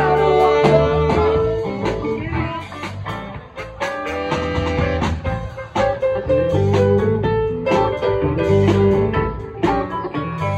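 Live band playing, with electric guitars, saxophone and a drum kit keeping a steady beat.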